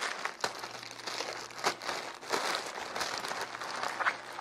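Plastic courier mailer bag crinkling and rustling as hands open it, with irregular sharp crackles throughout.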